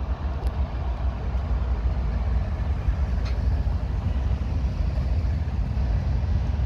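Freight train passing close by: the second of two CSX diesel locomotives goes past, then the first autorack cars follow on the rails. The sound is steady and heavy in the low end throughout, with one faint tick about three seconds in.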